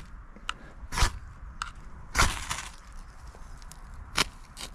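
Knife blade scraped hard down a ferrocerium fire-steel rod to throw sparks onto lichen and moss tinder: about four quick rasping strikes, the one a little past two seconds in the longest, with two close together near the end. The tinder is a little damp.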